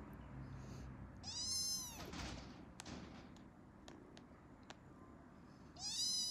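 A young kitten mewing twice, two short high-pitched calls that each rise and fall in pitch, the first about a second in and the second near the end.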